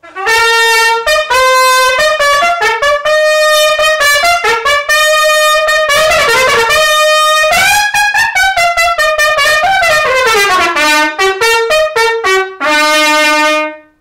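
Solo trumpet playing a fast, florid passage: quick runs and slurred notes in its middle register, a long glide up and back down in pitch around the middle, a quick falling run near the end, finishing on a held low note.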